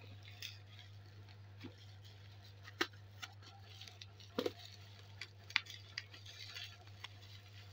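Plastic wrapping rustling and crinkling as it is handled and pulled off a boxed package, with scattered sharp clicks and taps. A steady low hum runs underneath.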